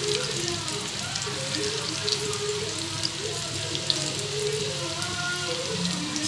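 Hot oil sizzling and crackling steadily as pieces of karmi saag leaf rikwach deep-fry in a metal kadhai, with faint wavering pitched sound underneath.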